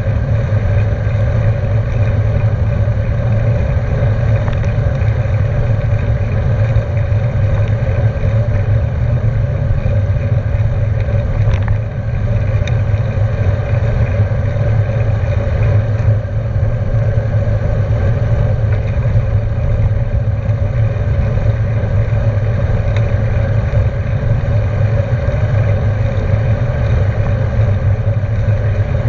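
Steady rush of wind over the camera microphone, with tyre noise from a bicycle rolling fast on wet asphalt.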